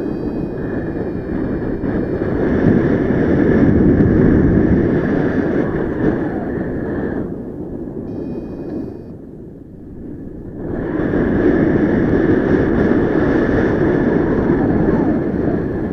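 Wind rushing over the microphone of a paraglider pilot's camera in flight. It eases for a few seconds about halfway, then comes back as strong. Short electronic beeps from a flight variometer sound near the start and again in the lull.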